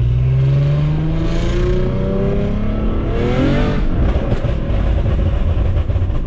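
2014 Infiniti Q50 3.7's V6 with long tube headers and a 3-inch custom exhaust, heard from inside the car, revving up as it accelerates: the pitch climbs steadily for about three seconds, rises and drops briefly like a gear change, then settles into a steady rumble with road noise.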